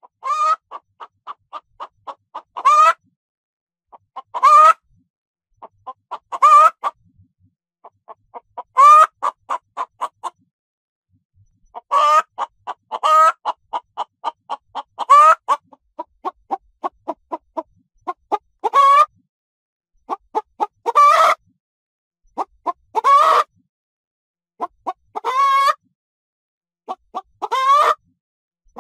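Domestic hen cackling. Each phrase is a run of short clucks ending in a long, loud squawk, and the phrases come about every two seconds.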